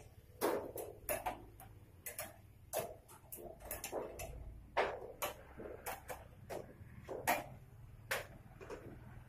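Irregular sharp clicks and light taps, one or two a second, from galvalume sheet-metal gutter pieces being handled and fitted by hand.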